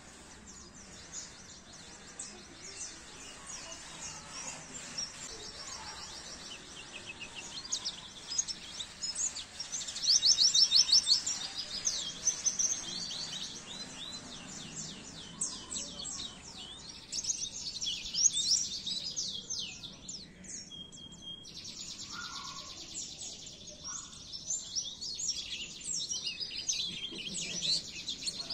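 White-eye (pleci) songbird singing: rapid, high-pitched chirping twitters and trills in dense bursts, with the loudest bursts about a third of the way in and again past the middle.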